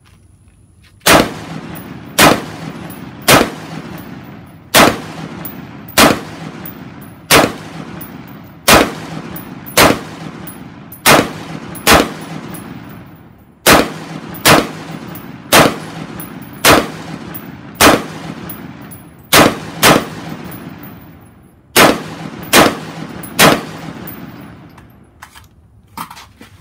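Twenty unsuppressed semi-automatic shots from an LWRCI Individual Carbine, an external-piston 5.56 mm AR-type rifle, fired at about one a second. Each shot is a sharp crack with an echo that fades before the next.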